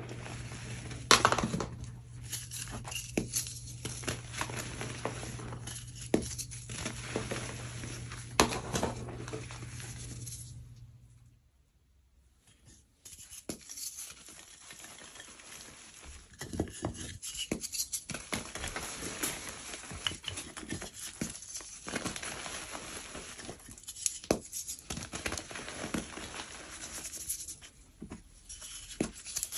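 Hands squeezing and crumbling powdery gym chalk: soft, irregular crunches and crackles as lumps break and powder packs, over a low steady hum. The hum stops about eleven seconds in and there is a short near-silent gap, then solid blocks of gym chalk are crushed and crumbled by hand, crunching and crackling.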